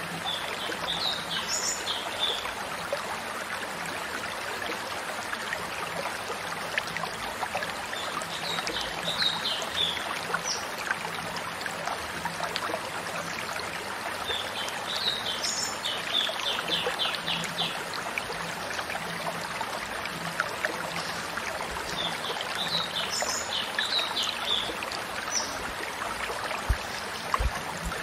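A stream running steadily, with short bursts of high bird chirps and trills every six to eight seconds.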